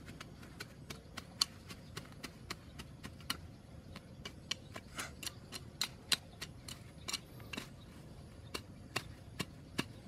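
A hand tool scraping and striking the ground as grass is cleared from a patch of soil: short, sharp, irregular clicks and taps, about two or three a second.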